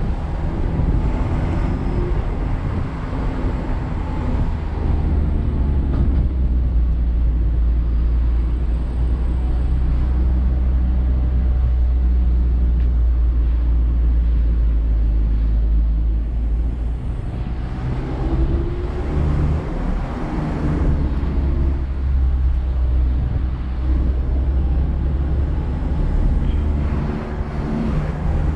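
Mazda MX-5 Miata's four-cylinder engine running on the move, heard from the open-top cockpit over a steady low road rumble. The engine note climbs and falls a few times, near the start, about two-thirds through and near the end, with steadier cruising between.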